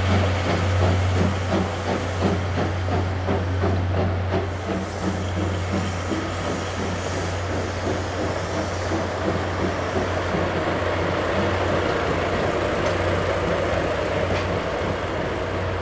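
The tail of a passing passenger train: coach wheels click rhythmically over the rail joints above a steady low drone from the DE10 diesel locomotive at the rear, which comes past near the end. A high hiss fades out about two thirds of the way through.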